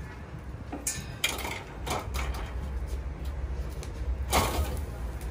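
Wire grill grates clinking and scraping against each other and the rim of a metal charcoal grill as they are laid over the coals: several short metallic scrapes, the longest about four seconds in.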